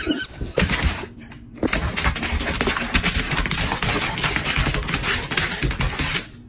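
A dog's claws clattering fast on a hardwood floor as it hops about in place, a rapid continuous run of clicks that stops just before the end.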